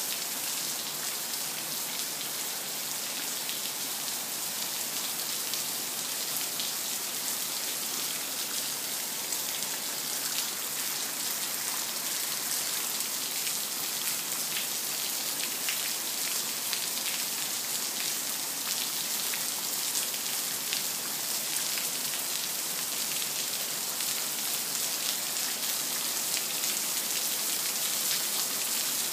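Heavy rain pouring down steadily on a lawn and concrete path: a dense, even hiss with a fine patter of drops.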